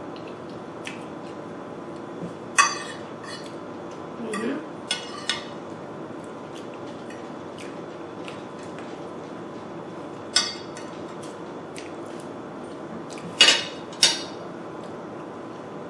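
Cutlery clinking against a dish while eating pasta: about six sharp clinks spread out, a pair close together near the end, over a steady low background hum.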